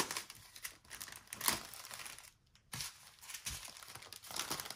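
Small plastic zip-lock bags of diamond painting drills crinkling and rustling as they are handled and shifted about by hand, with a short pause about two and a half seconds in.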